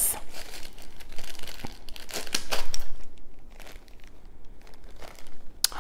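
Plastic bag crinkling as hands rummage in it. It makes a run of irregular rustles and crackles, busiest in the first three seconds and sparser after, with one sharp crackle near the end.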